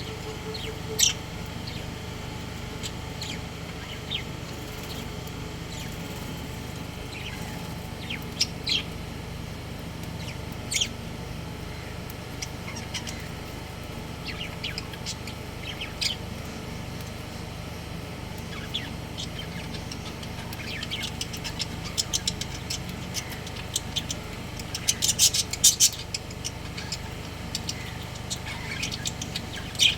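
Budgerigars chirping: short, high chirps scattered sparsely at first, then a quick busy flurry of them in the last few seconds, over a steady low hum.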